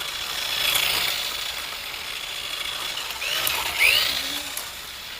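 A small toy motor whirring, with a couple of short rising chirps about three and a half seconds in.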